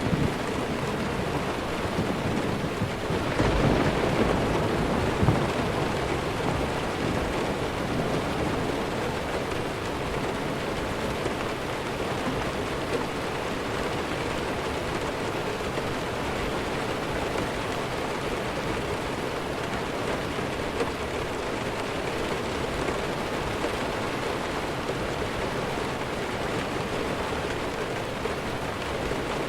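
Steady heavy rain, with a low rumble of distant thunder swelling a few seconds in and fading away.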